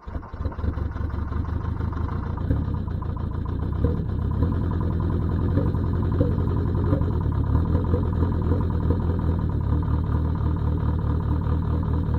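VW 1.7 turbo-diesel inline-four catching on a cold start at 20°F, its level climbing over the first second, then running at a steady idle.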